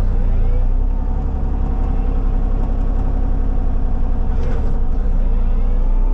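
Diesel engine of a compact tracked machine (skid steer or mini excavator) running steadily under work.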